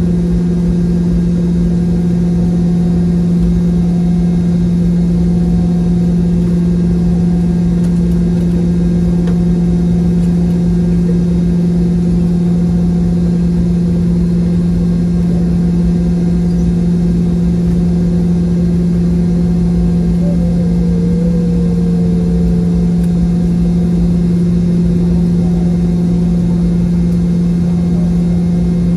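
Inside the cabin of a Boeing 717-200 taxiing on the ground: its rear-mounted Rolls-Royce BR715 turbofans running at idle, a loud, steady drone with a strong low hum.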